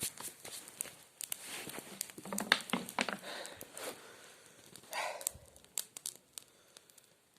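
Burning brushwood crackling and snapping in irregular sharp clicks, with rustling bursts, thinning out near the end.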